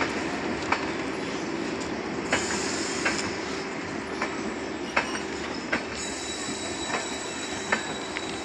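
Indore–Jodhpur Express train rolling past on the rails, a steady rumble broken by sharp wheel clicks over rail joints about once every three-quarters of a second. A faint high whine enters near the end.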